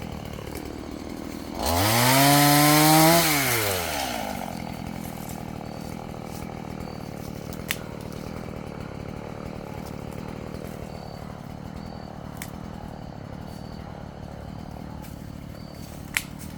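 Chainsaw engine idling, revved once about two seconds in: the pitch rises, holds for a moment and falls back to idle. A few sharp clicks sound later on.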